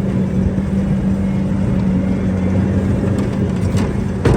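Bobcat T590 tracked skid steer's diesel engine running steadily at a constant speed, with one sharp knock near the end.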